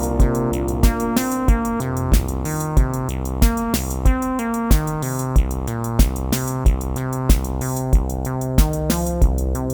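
Amiteque AR-110 analog drum synth playing a looping pattern: a bass drum on every beat, just under two a second, with hi-hats and other drum hits between. It plays over sustained pitched chords and a moving melodic line.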